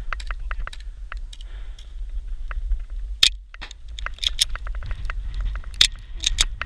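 Irregular sharp clicks and snaps of airsoft gunfire and BBs striking cover, a few loud cracks among many lighter ones, over a steady low rumble.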